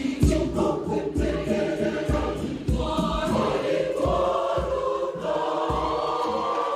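Large mixed Catholic church choir singing in parts over a low, steady beat about twice a second, the voices settling into long held chords in the second half.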